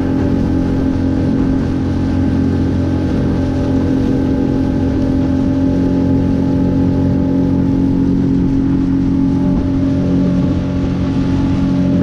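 A kayak's small motor drives the boat at a steady pace, its pitch holding level, with wind and choppy-water noise underneath.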